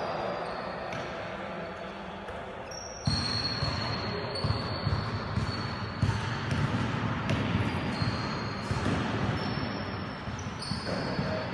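A ball bouncing on an indoor court floor: irregular thuds that begin suddenly about three seconds in and keep coming at uneven intervals.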